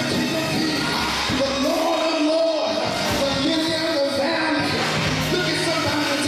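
Music with singing: a voice sung in long, sliding notes over live instruments.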